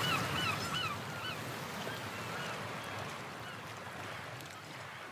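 Soundtrack fading out: a quick run of short chirping calls, about three or four a second, over a soft hiss, dying away.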